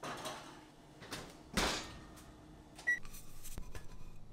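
A cake pan is slid onto the oven rack and the oven door is shut with a thud, followed just before the three-second mark by a short electronic beep from the oven controls. A sharp click comes a little later.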